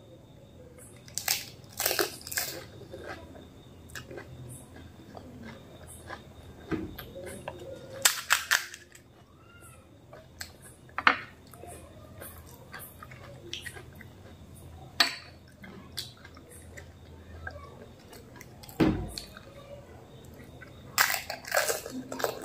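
Close-miked eating of fuchka (pani puri): crisp puri shells cracking as they are broken open and bitten, with crunching and chewing in between. The sharp crackles come in short clusters every few seconds.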